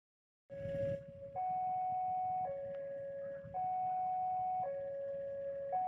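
Electronic two-tone warning signal alternating between a low and a high pitch, each held about a second, over a low rumble. It starts about half a second in.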